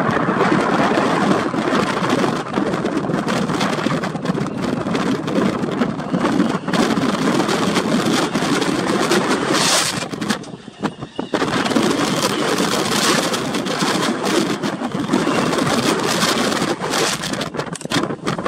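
Strong, gusty wind rushing over the microphone, a dense noise that drops off briefly about ten seconds in.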